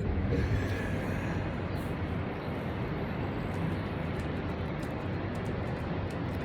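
Ocean surf: a steady rush of waves breaking and washing up the beach, with a low rumble.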